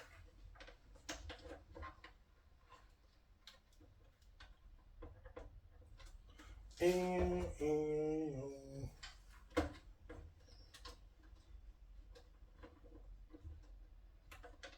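Scattered light clicks and taps of tools and parts being handled, with a man humming a short tune of a few stepped notes about seven seconds in.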